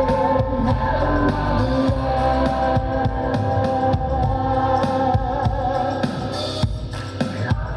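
Rock band playing live: drums and bass under long held notes in the midrange. The sound dips briefly near the end.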